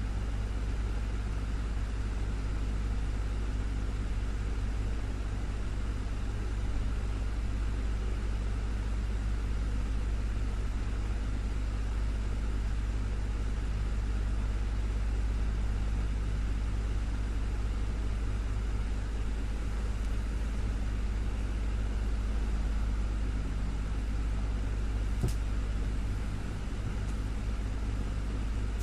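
Desktop fan running steadily: a constant whirring hum with a strong low drone and a few faint steady tones, and one faint click near the end.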